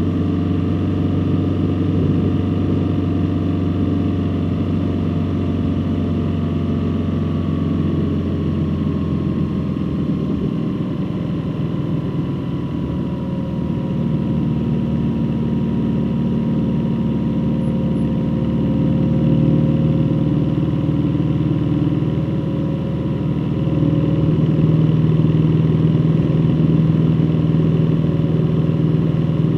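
A road vehicle driving, with steady engine and road noise. The low engine hum gives way to a higher engine note about ten seconds in, which grows louder near the end.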